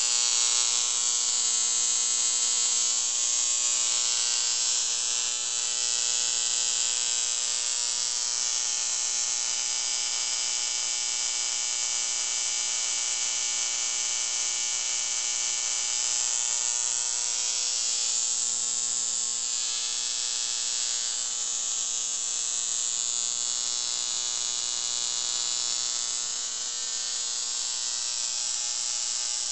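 Spark gap of a Lodge syntonic Leyden jar oscillator firing continuously as the Leyden jars charge and discharge. It makes a steady, harsh electrical buzz with a mains-pitched hum under it, the sound of the transmitter oscillating and sending out radio waves.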